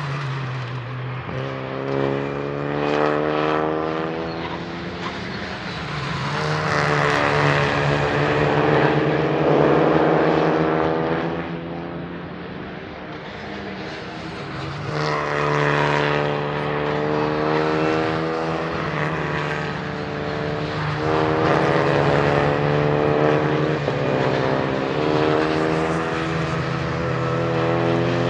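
Renault Clio Cup race cars passing at speed one after another, each engine note swelling and bending in pitch as it goes by, over a steady low hum.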